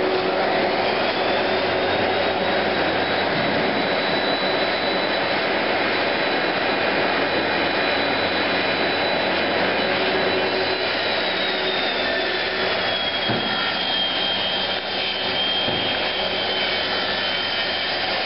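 An electric motor running steadily with a loud whirring rush and a thin high whine, which slides a little lower in pitch just past halfway.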